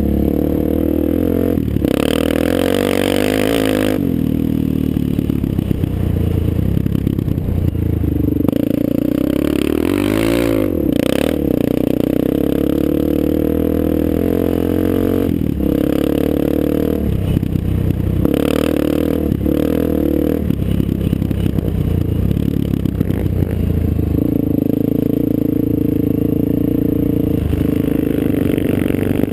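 ATV engine running under throttle as the quad rides over sand, its pitch rising and falling with throttle and shifts, with a quick drop and climb in pitch about ten seconds in. A rushing noise joins it for about two seconds near the start.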